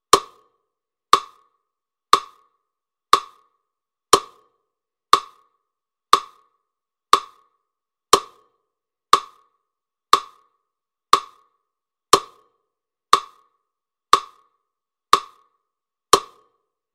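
A hollow wood-block knock struck at a steady one beat per second, metronome-even, about seventeen times, each knock dying away quickly.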